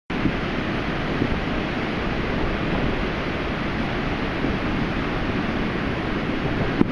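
Surf breaking along a sandy beach: a steady wash of waves, with wind buffeting the microphone.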